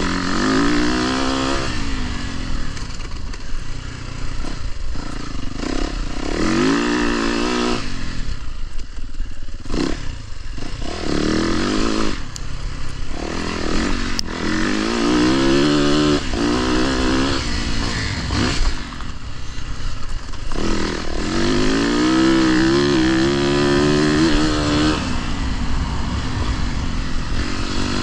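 Dirt bike engine being ridden, revving up and easing off again and again, its pitch climbing and dropping every few seconds.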